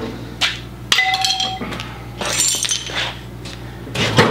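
Loose metal parts of an antique gas pump's mechanism clinking and rattling as they are handled. A few separate strikes ring briefly, and a louder clatter comes near the end.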